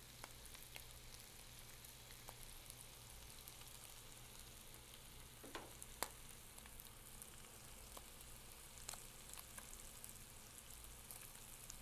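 Browned ground beef crumbles sizzling faintly in a skillet, with scattered crackles and a few light clicks of a utensil stirring the meat; the sharpest click comes about six seconds in.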